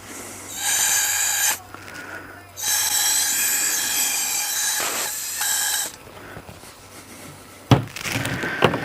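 Air blower hissing with a steady high whine in two blasts, a short one and then one about three seconds long, blowing air through a carb-cleaned generator fuel part to clear out crud. A sharp knock and light clatter near the end.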